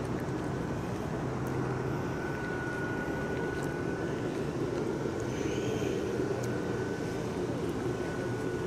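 Steady low mechanical drone with a thin, steady high tone held over it from about a second and a half in.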